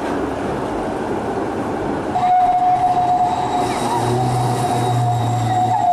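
Low-floor electric tram running past close by. Its rumble fills the first two seconds; then a steady high tone sets in and holds, and a low hum joins it about four seconds in.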